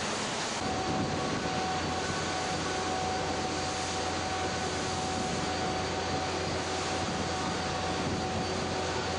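A steady mechanical drone with a low hum and a thin, constant high whine, over a continuous rush of wind and sea. The drone starts about half a second in.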